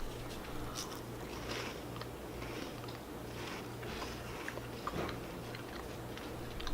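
People biting into and chewing matcha chocolate corn puffs, with soft, scattered crunching and a few small clicks.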